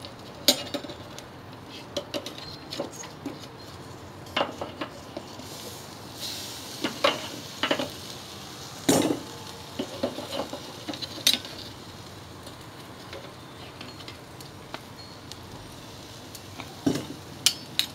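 Metal tongs and a spatula clicking and scraping against a charcoal grill grate and cedar grilling planks as meatloaf patties are lifted off the planks onto the grate, a scattering of short knocks over a faint sizzle.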